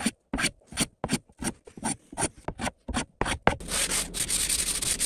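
Short scraping strokes of a small hand tool along the chamfered hardwood edge of an end-grain cutting board, about four a second, rounding the edge over. About three and a half seconds in, this gives way to steady back-and-forth hand sanding, with a strip of abrasive paper pulled over the edge.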